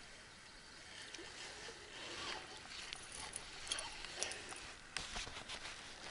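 A spinning rod and reel being handled: irregular small clicks and rustles as the rod is lifted from the grass and the reel is wound in.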